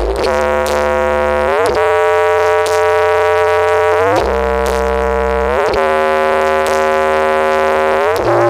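Music played loud through a large horeg sound-system rig with double subwoofers: held synthesizer chords that slide upward into each new chord every couple of seconds, over long deep bass notes.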